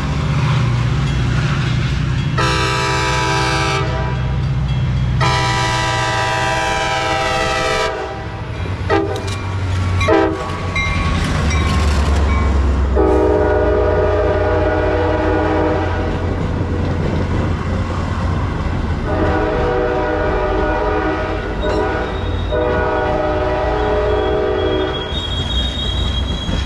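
Metra commuter trains at a grade crossing: a diesel locomotive horn sounds a series of blasts, some short and two brief toots, then three longer blasts while the bilevel passenger cars roll past. Under the horn the locomotive's diesel engine runs with a low rumble and the wheels click over the rail joints. Near the end a high, steady wheel squeal begins.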